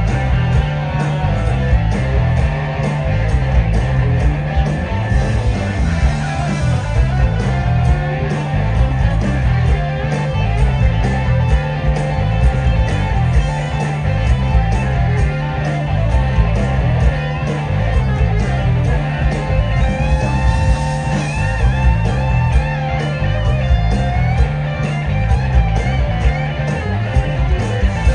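Live blues-rock band: an electric guitar plays a lead over a steady drum beat and bass guitar, with bent notes in the guitar line near the end.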